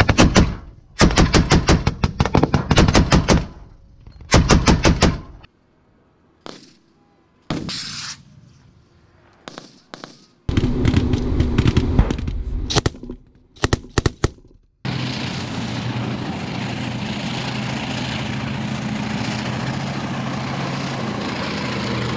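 Rapid bursts of automatic gunfire, several long bursts in the first five seconds, then scattered shots and more bursts. About fifteen seconds in the gunfire gives way to a tank's engine running steadily as the tank drives.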